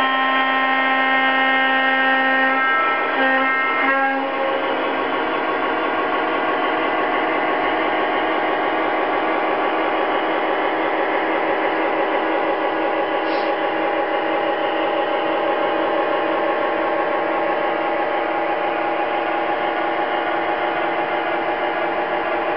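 Lionel O-scale RS-11 model diesel's electronic horn blowing a long note, then a couple of short toots that end about four seconds in. After that the cars of a mixed freight train roll steadily over the three-rail track with a whirring hum.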